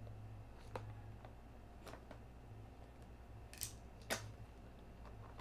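Packaging of a product box being opened by hand: about four short sharp snips and scrapes, the loudest about four seconds in, over a low steady hum.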